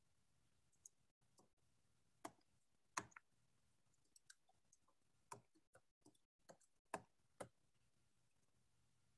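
Faint, irregular clicks and taps, about a dozen scattered over several seconds with near silence between them, the sharpest about three seconds in and again near seven seconds.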